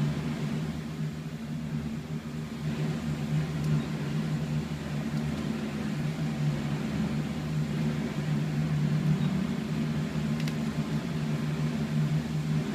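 Steady low mechanical hum with a few fixed pitches.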